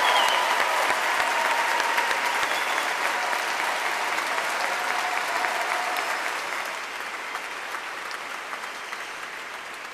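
Congregation applauding, the clapping slowly dying away.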